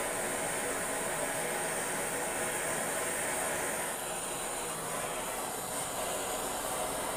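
Handheld canister gas torch burning with a steady hiss, its flame heating a copper pipe joint on an AC compressor for brazing.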